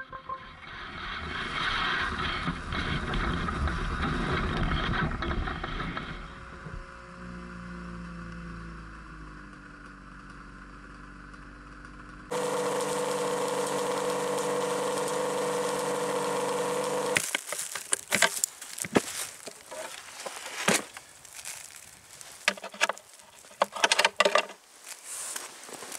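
Snowmobile engines running at speed, then easing off with the engine note falling. After a sudden change about twelve seconds in, an engine idles steadily. From about seventeen seconds on come clicks, knocks and rattles as gear is handled in a wooden box on the sled.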